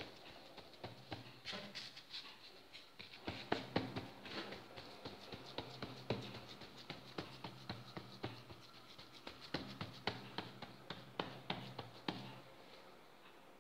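A hand patting and pressing semolina dough flat on a semolina-dusted wooden board: soft, irregular pats and taps, several a second, with a faint steady low hum underneath.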